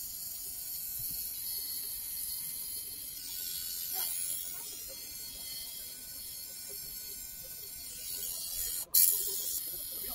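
Electric tattoo machine running steadily while shading a tattoo on skin. About nine seconds in there is a split-second dropout, then a brief louder rush of noise.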